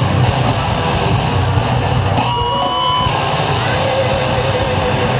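Loud, dense band music with guitar, and a short held high note standing out about two seconds in.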